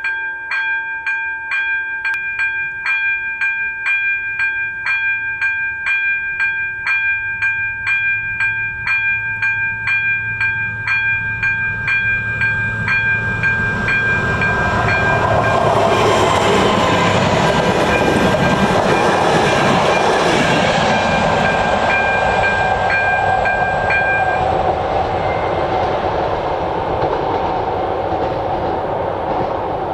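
Level-crossing electronic warning bell (AŽD ZV02) dinging about twice a second. About halfway through, a passenger train hauled by a ČD class 750 'Brejlovec' diesel locomotive comes past with a loud rumble that drowns out the bell. The bell stops a few seconds before the end while the train noise goes on.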